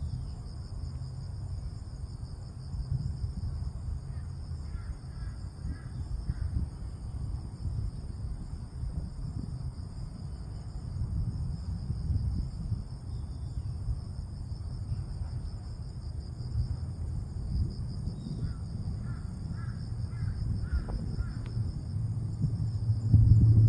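Harsh calls of a crow-family bird in two short series, a few seconds in and again later, over a steady high insect trill and a low rumble of wind on the microphone.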